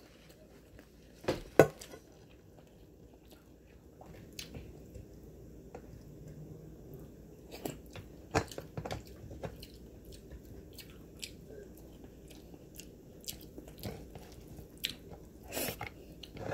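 A person chewing and eating close to the microphone: irregular wet mouth clicks and small crunches, with a few louder ones about a second and a half in, around eight seconds in and near the end.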